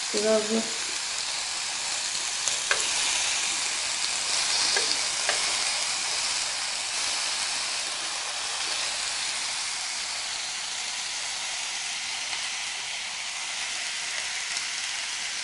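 Marinated kebab skewers of meat, onion and bell pepper sizzling steadily on a hot electric grill plate, with a couple of light clicks in the first few seconds.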